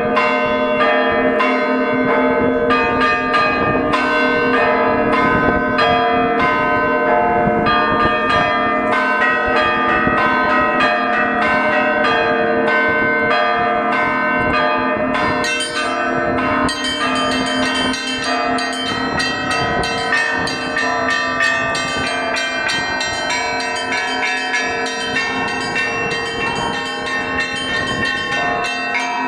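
Russian Orthodox festive peal (zvon): a set of tower bells struck in a rapid rhythm by one ringer. Small bells chime quickly over the lasting hum of the larger bells. About halfway through, the high bells grow busier and brighter.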